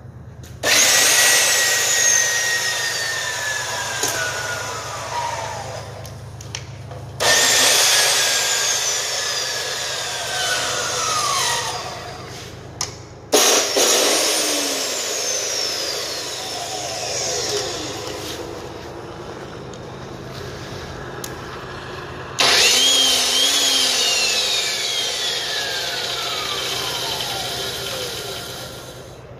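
Four 14-inch 120-volt abrasive chop saws are switched on one after another, running without a cut. Each motor starts abruptly with a loud whine, then winds down as the trigger is let go, its pitch falling over several seconds.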